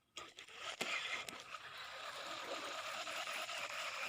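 A steady rushing, hissing noise with a few sharp clicks in the first second.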